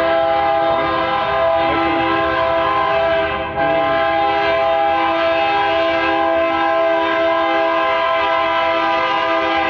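Diesel locomotive's air horn sounding a long, loud chord of steady notes, broken once briefly about three and a half seconds in, as the train approaches the crossing: the warning signal for a grade crossing.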